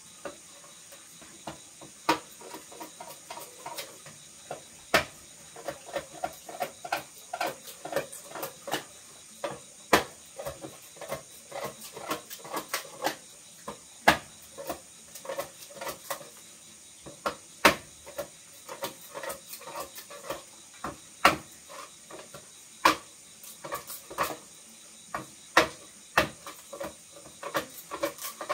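Irregular sharp knocks on a hollow bamboo tube, each with a brief hollow ring, sparse at first and then coming several a second from about five seconds in, as the tube is worked by hand. A steady high chirring of insects runs underneath.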